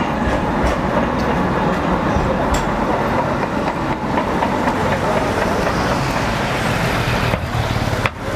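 Steady rush of city traffic on a wet street, with vehicles rolling past and a few small clicks. The sound dips briefly near the end.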